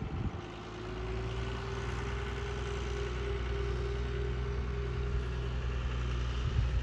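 Farm tractor engine running at a steady speed as the front-loader tractor drives across the field: a low, even hum with a steady whine above it.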